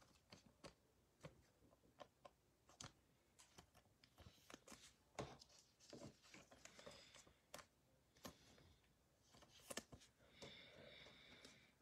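Near silence with faint, irregular clicks and soft rustles of glossy trading cards being flipped and handled one by one.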